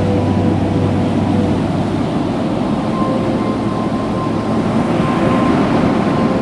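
Steady rush of ocean surf and wind on the microphone, with two faint held tones over it.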